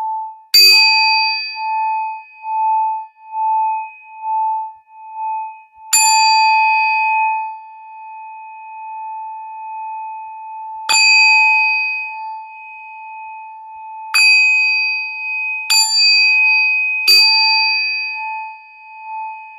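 Metal singing bowl struck six times, each strike ringing on into a long, slowly pulsing hum, with the strikes coming closer together in the second half.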